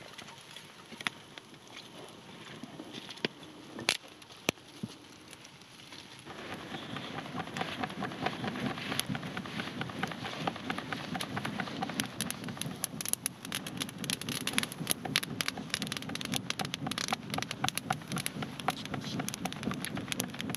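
Campfire crackling and popping: scattered sharp cracks at first, then about six seconds in the fire grows louder and busier, with a steady hiss and many quick pops.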